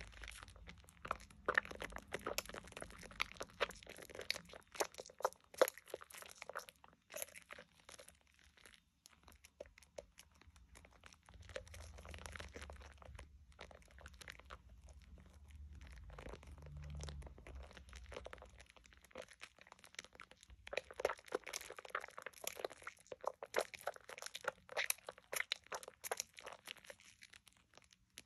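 Hands squeezing and kneading thick Dove shea butter soap lather, the foam crackling and popping densely as it is worked. The crackling is busiest in the first third and again in the last third, with a quieter spell in between.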